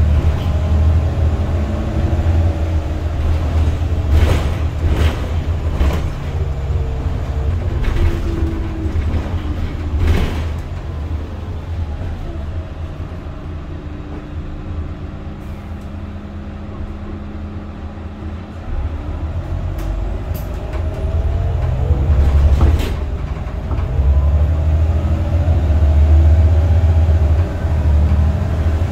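Cabin sound of an Irisbus Citelis 12 city bus with an Iveco Cursor 8 straight-six diesel and Voith automatic gearbox: a deep engine drone whose pitch falls as the bus eases off, goes quieter for several seconds, then rises again as it accelerates. A few sharp knocks and rattles from the body are heard along the way.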